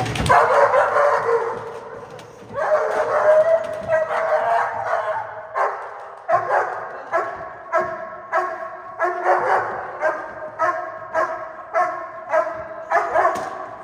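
German Shepherd protection dog barking hard in protection drive: a burst of near-continuous barking at first, then steady repeated barks about two a second.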